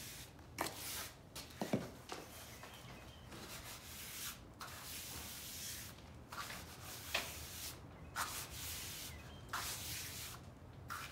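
Small metal hand trowel scraping and smoothing wet earthen floor mud, a mix of clay soil and sand, in a series of irregular strokes.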